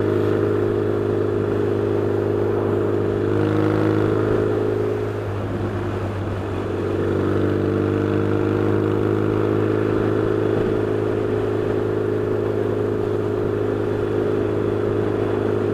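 Yamaha XS650 parallel-twin motorcycle engine pulling steadily on the road. About five seconds in the revs drop briefly and then climb back to a steady pitch. The engine is being run in gently at around 40 to bed in new pistons and rings.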